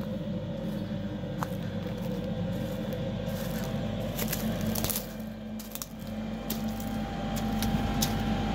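A steady mechanical hum from the pump machinery in a small cabin, with a few light clicks over it. The walker comes to think the cabin is a vent drawing methane from a buried rubbish dump.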